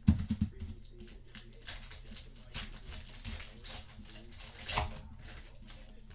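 Plastic-foil wrappers of trading card packs crinkling and tearing as they are ripped open: an irregular run of short crackles and rips.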